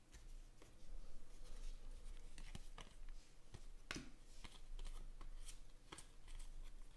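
A stack of trading cards picked up off a table and thumbed through by hand: faint, quick clicks and slides of card stock against card stock, in an irregular patter.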